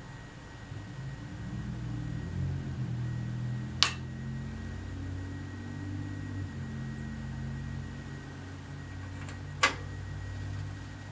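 Low steady hum of a Digital Watchdog DW-4AA DVR and Samsung SMC-150FN CRT monitor running, broken by two sharp clicks of their power switches, about four seconds and nine and a half seconds in, as the units are shut down.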